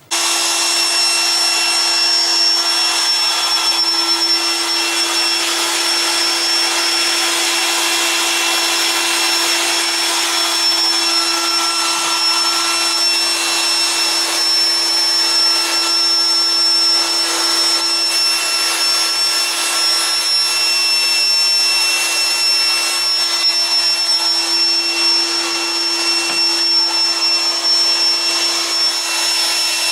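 Loud, steady electric motor whir with a constant hum and high whine, starting abruptly and running without a break.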